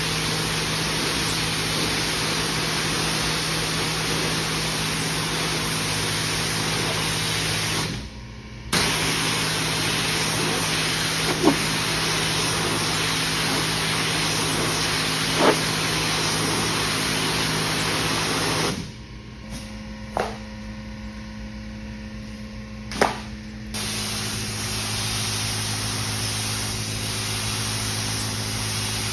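Pressure washer wand spraying a water jet onto an area rug on a wet concrete floor: a steady hiss over a low machine hum. The spray stops for under a second about eight seconds in, and again for about five seconds past the middle, where only the hum is left, before spraying resumes. A few short squeaks are heard.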